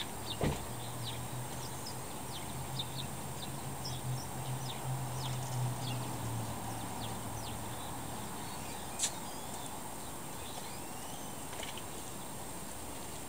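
Outdoor background noise with small birds chirping on and off, a low steady hum for about the first eight seconds, and a single sharp click about nine seconds in.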